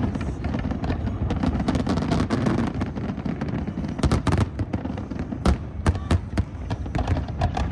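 A large fireworks display at its finale: a dense, continuous barrage of shell bursts over a steady rumble, with many sharp cracks, the loudest about four and five and a half seconds in.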